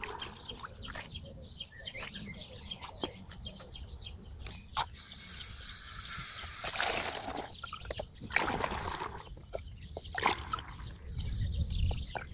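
Liquid nettle manure being bottled by hand: it splashes and sloshes as it is poured through a plastic funnel into a plastic bottle and as a plastic bottle is dipped into a bucket to fill it. The liquid sounds come in irregular bursts, with small knocks of plastic between them.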